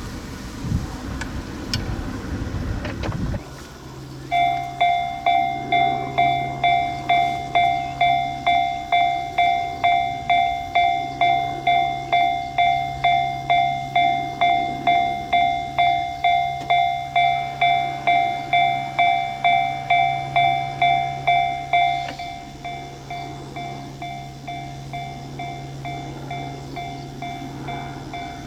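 Japanese railway level-crossing warning bell ringing its electronic 'kan-kan' about twice a second, starting about four seconds in, over a steady low hum; about 22 seconds in it drops to a noticeably quieter level and keeps ringing. Before it starts there is a low rumble.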